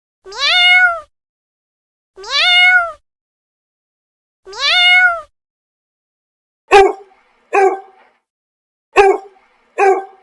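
Three drawn-out whining calls, each rising at the start and then holding its pitch, about two seconds apart, followed by a dog barking: four short barks in two pairs.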